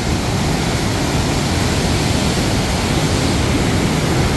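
Chenab River floodwater rushing and churning below the gates of a barrage: a steady, loud noise of turbulent water.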